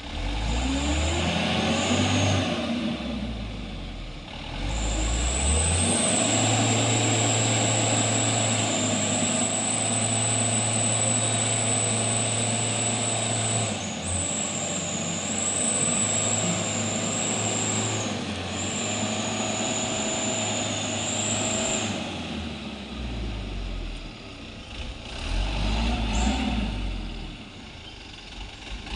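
Truck engine running under load, its revs climbing and dropping, with a high-pitched whine held through the middle stretch.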